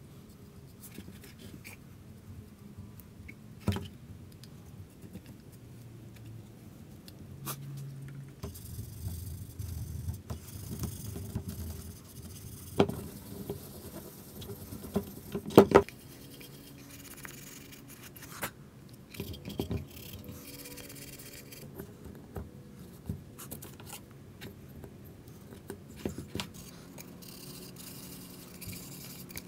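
Hand-finishing noises on a small wooden box: a brush working finish on it, then a grey abrasive pad rubbing and scraping over the wood for long stretches, with scattered sharp knocks as the box is handled and set down on the bench.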